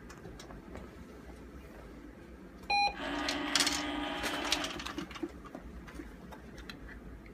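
Remote-controlled treat dispenser: a short electronic beep, then its motor whirs and rattles for under two seconds as it dispenses a reward, followed by a few light clicks.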